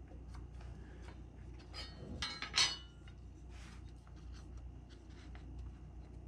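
Thin aluminium aircraft rib clinking and rattling against the plywood bench as it is handled and set down, with the sharpest ringing clink about two and a half seconds in. Softer scraping and light taps follow as a wooden block is fitted onto the rib's flange.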